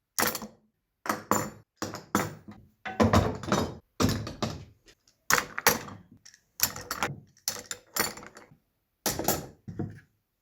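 Woodworking clamps being taken off a freshly glued stack of wood layers: a string of separate clunks and knocks, about one or two a second, each with a short metallic ring.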